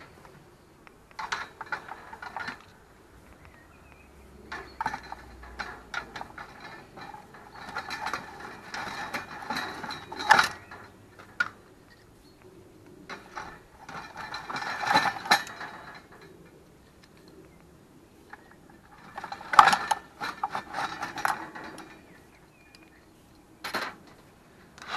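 Irregular mechanical clicking and scraping in short clusters, with quiet pauses between.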